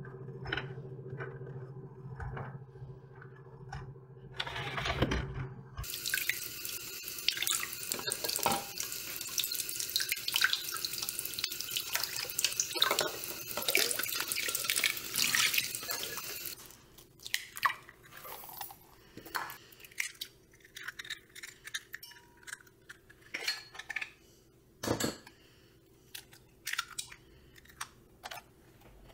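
Tap water running into a small bowl while eggs are rinsed under it by hand; the water stops abruptly about halfway through. Then come scattered light taps and clinks as eggs are cracked into a glass measuring cup, with one sharper knock near the end.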